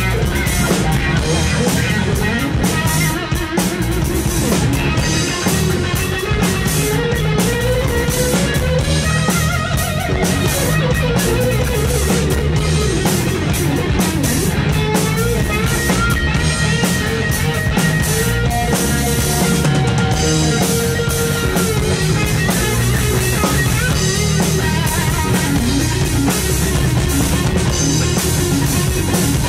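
Live rock band playing an instrumental stretch: an electric guitar (a Fender Stratocaster) plays bending melodic lines over a drum kit, with no singing.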